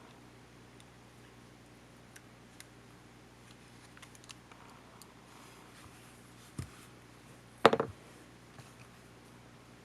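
Small clicks and taps from handling the parts of a camcorder being disassembled, with a low knock about two-thirds of the way through and a loud, brief clatter soon after.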